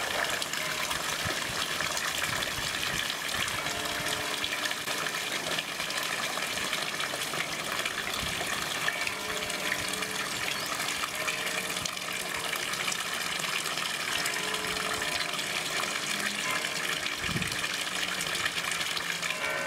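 Water pouring steadily from a stone fountain spout into a pond, a continuous even splashing rush.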